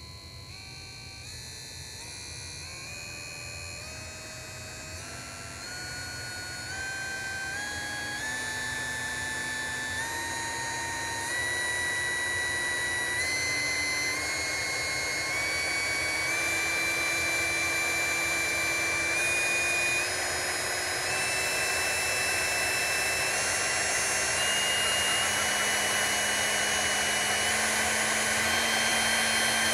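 Large 997 brushed DC motor running with no load, its whine rising in pitch in small steps and getting steadily louder as its supply voltage is stepped up. Under the whine are the motor's commutation noise, its internal fan, and its shaft rubbing in plain bushings rather than bearings.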